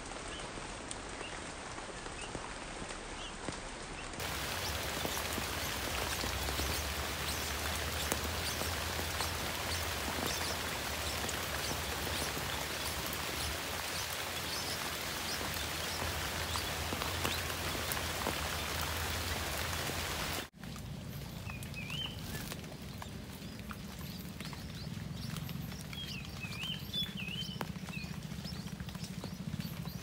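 Steady rain pattering on leaves, heavier after a few seconds. About twenty seconds in it cuts suddenly to lighter rain, and a few short, high bird chirps come through.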